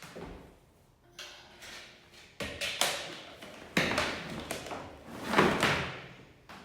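Clunks, knocks and a scrape of heavy metal parts being handled on a floor drum sander as it is put back together, about half a dozen irregular thumps with the loudest near the end.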